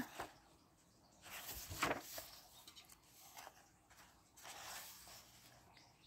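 Paper pages of a softcover coloring book turned by hand: a soft rustle and swish about two seconds in, and a fainter one near the end.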